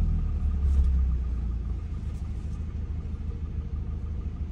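Car engine running with a low rumble, louder at first and easing off about two seconds in.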